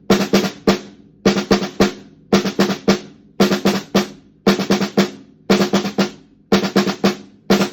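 A drum played as a warm-up exercise: short bursts of four or five quick strokes, repeating about once a second, with the drum ringing at a clear pitch after each stroke.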